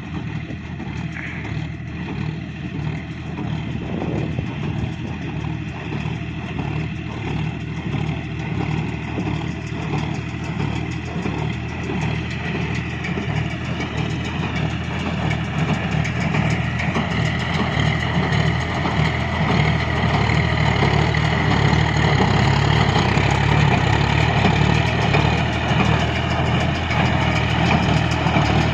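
John Deere 5105 tractor's diesel engine running with the baler in tow, growing louder over the first twenty seconds or so and then holding steady.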